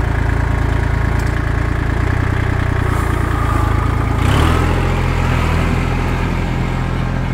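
Vehicle engine running steadily near idle, its pitch shifting and getting a little louder about four seconds in as it is revved or set moving.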